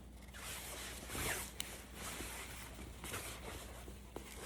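A shower curtain rustling as it is handled and folded, in several soft swishes with a couple of small clicks.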